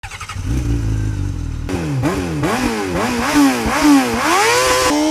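Motorcycle engine running low at first, then revving up and dropping back several times in quick succession before climbing in one longer rising pull near the end.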